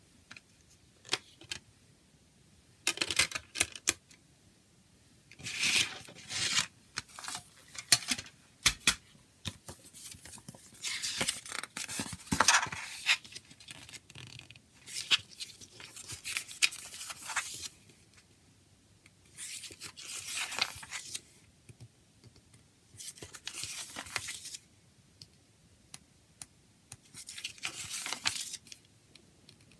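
Paper CD booklet being handled and its pages turned, rustling and crinkling in repeated bursts of a second or two with short pauses between, after a few light clicks of the plastic jewel case near the start.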